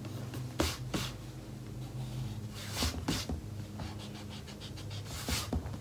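A pencil drawing short strokes on a canvas, a few separate scratchy strokes with pauses between, over a steady low hum.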